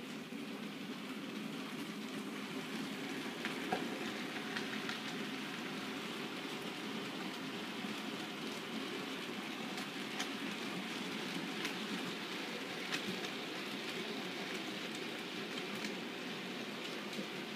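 OO gauge model goods train of mixed wagons running along the track: a steady rattle of small wheels on rail, with scattered sharp clicks.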